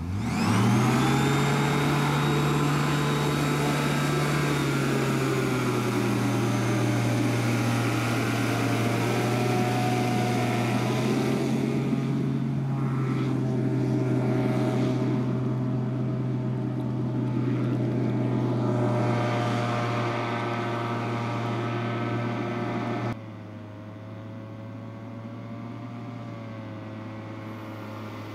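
Airslide H37 hovercraft's engine and ducted fan running steadily as the craft travels, climbing in pitch in the first second. About 23 seconds in, the sound drops suddenly to a quieter level and continues with small rises and falls in pitch.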